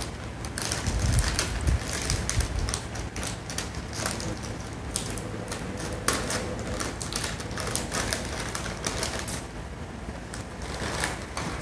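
A plastic snack bag of popcorn crinkling and crackling as it is torn open at the top and handled: a rapid, irregular run of crackles.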